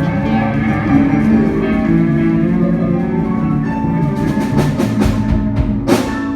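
A live band playing: sustained pitched instruments over drums, with a quick run of drum and cymbal hits in the second half.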